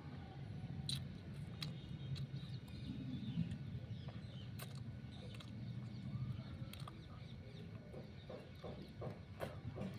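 Raw sugarcane being chewed and crunched, with sharp cracks every second or so and a quicker run of short crunches near the end, over a low steady rumble.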